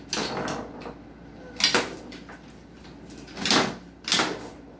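A few sharp knocks and rattles from a tabletop foosball game as the plastic players strike the ball and the metal rods knock in the table's sides.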